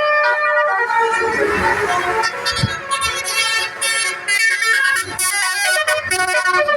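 Basuri telolet horn, a multi-tone bus horn, playing a melody. The notes are held for the first couple of seconds, then turn quick and short.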